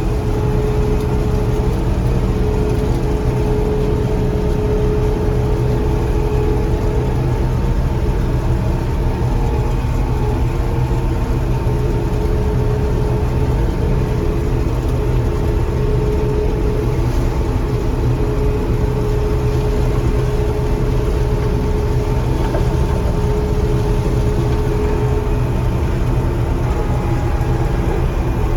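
John Deere 4400 combine running steadily while harvesting corn: a constant engine and machinery drone with a steady whine over it.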